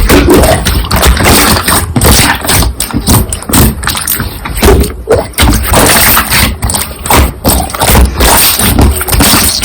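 Slime being squished and pressed by hand close to the microphone: a dense, irregular run of sticky clicks, pops and squelches with soft thuds.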